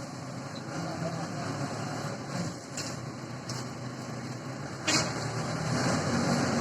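Backhoe loader's diesel engine running steadily, with a sharp clank about five seconds in, after which the engine gets louder.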